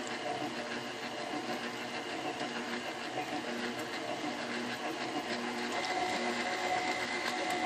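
Electric stand mixer running steadily, its beater turning through a thin, pancake-batter-like dough mix of flour and melted butter. A faint high whine joins about six seconds in.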